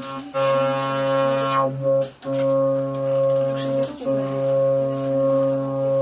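Polivoks analog synthesizer playing held notes, changing note about two seconds and four seconds in. The loudness swells and fades about once a second: the envelope generator cycling through attack and decay in its multiple mode.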